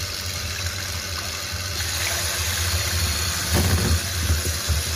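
Electric hand mixer running steadily, its two beaters whipping egg whites in a glass bowl into meringue.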